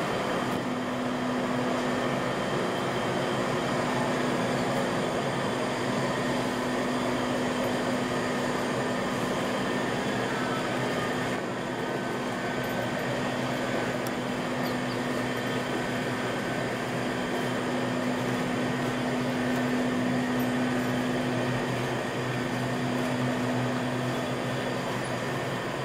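Steady mechanical hum and whir inside a moving Ferris wheel gondola, with one low steady tone over an even rush of noise.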